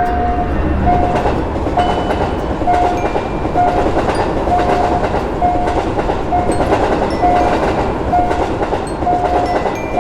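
Railroad crossing warning signal sounding a steady repeating tone, about one and a half beeps a second, over the rumble and clatter of a train passing over the crossing.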